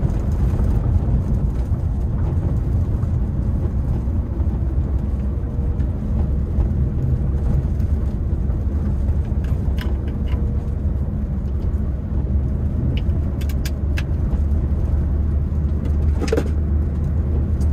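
Honda Brio heard from inside the cabin while being driven along: a steady low rumble of engine and tyre noise. A few light clicks fall in the second half, the clearest near the end.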